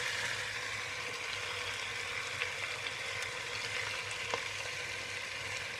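Raw spiced mutton and sliced onions sizzling as they land in a hot pressure cooker greased with smoking ghee: a steady hiss, a little stronger at the start, with a couple of faint clicks.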